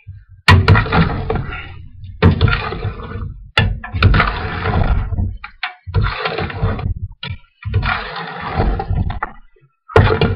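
Spoon stirring and scraping chicken pieces in a cooking pot: six long, loud strokes with short pauses between, most starting with a sharp knock.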